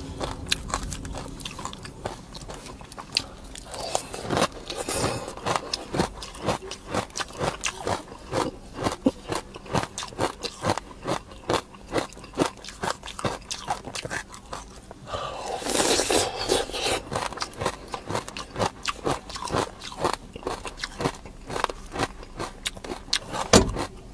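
Crunching and chewing as ice cream coated in hard, crunchy granules is bitten, with many sharp crackling clicks. The granules also scrape and rustle as the cone is dipped and rolled in them, most densely in a longer scraping rush about two-thirds of the way in.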